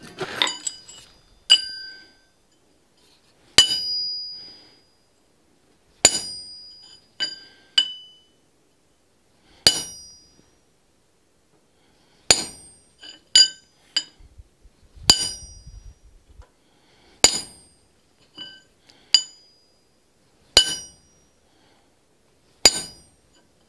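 Hammer striking a center punch on a 3/4-inch square steel bar lying on an anvil, marking the ends of layout lines. The blows are sharp metallic strikes every second or two at an uneven pace, each with a brief bell-like ring.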